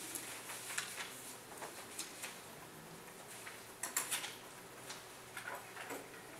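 Sheets of paper being handled and flipped, with scattered light taps and clicks; the loudest rustle and clicks come about four seconds in.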